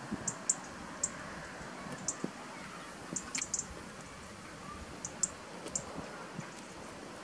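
Eurasian magpie's claws clicking on concrete paving slabs as it walks and hops, light sharp ticks in small irregular clusters of one to four.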